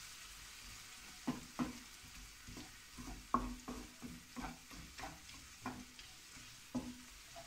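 Wooden spatula scraping and knocking against a nonstick frying pan while stirring fried onions with spices, garlic and vinegar: over a dozen strokes at an uneven pace, over a faint steady sizzle from the hot oil.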